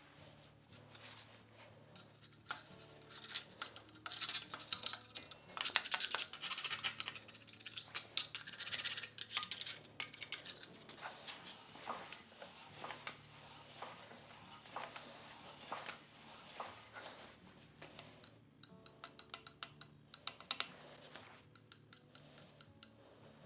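Hand work on metal machine parts: irregular clicks, clinks and scraping, busiest for several seconds near the start, then sparser.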